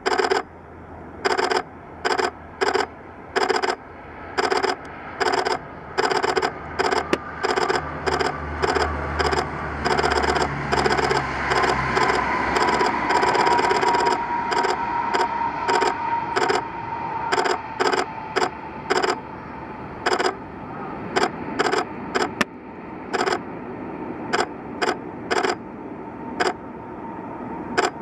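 SLR camera shutter clicking over and over, singly and in quick bursts, over the whine and rumble of the Super Guppy Turbine's four Allison turboprop engines as it lands. The low rumble swells before touchdown and the turbine whine sinks slightly in pitch after it.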